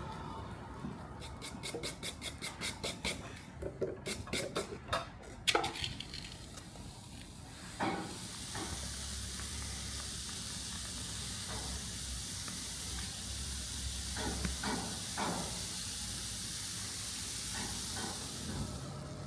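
Workshop sounds: a run of quick, evenly spaced strokes, about four a second, then a steady hiss with a few knocks in it.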